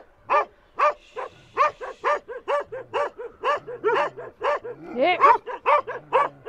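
Sheep-flock guard dogs barking over and over, about two short barks a second, a territorial warning at the approaching German Shepherd.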